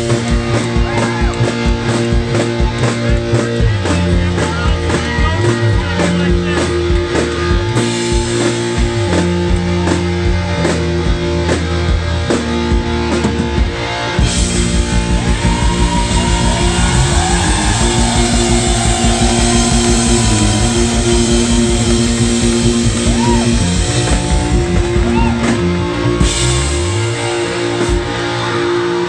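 Live rock band playing: guitars and bass over a steady, driving drum beat. About halfway through the music gets fuller and brighter, with cymbals filling the top, then it thins out near the end.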